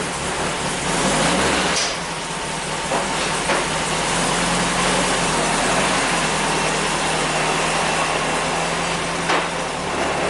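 1973 VW Bay Window campervan's air-cooled flat-four engine running steadily, with a strong hiss over it.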